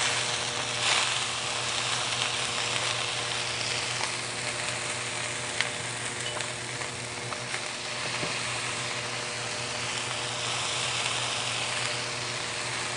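Basa fish fillet sizzling steadily in hot oil in a nonstick frying pan, with a few small spits and crackles. The sizzle surges briefly about a second in as lemon juice is squeezed onto the hot pan.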